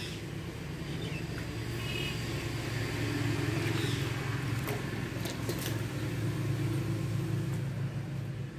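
A motor vehicle's engine running as a steady low rumble that swells through the middle and eases off near the end.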